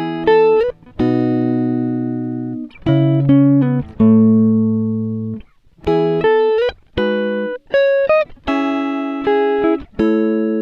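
Background music: plucked guitar notes and chords, each struck sharply and left ringing to fade before the next.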